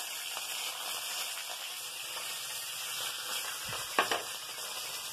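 Curry leaves and whole spices sizzling steadily in hot oil in a steel kadai, a tempering. A single sharp knock about four seconds in.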